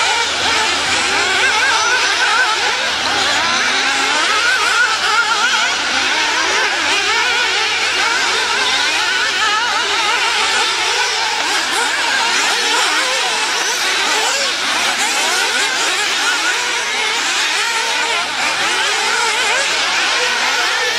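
Several 1/8-scale nitro off-road RC buggies' small two-stroke glow engines screaming at high revs, their overlapping whines rising and falling without pause as the cars accelerate and brake around the track.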